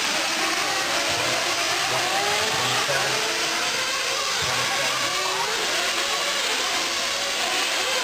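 Several 1/8-scale nitro truggies racing at once, their small two-stroke glow engines buzzing, each whine rising and falling as the trucks speed up and slow down, the pitches overlapping.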